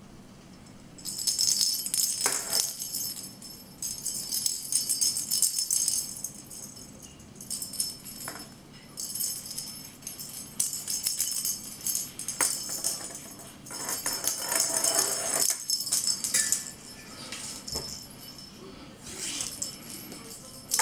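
Bell inside a perforated plastic cat-toy ball jingling and rattling as the ball is pulled along on a string and batted, in bursts of a second or two, on and off.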